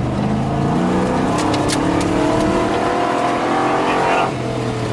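Nissan Patrol 4x4's engine accelerating hard on a dirt track, heard from inside the cab: the pitch climbs steadily, drops briefly near the end as if for a gear change, then starts climbing again. A few sharp clicks sound about a second and a half in.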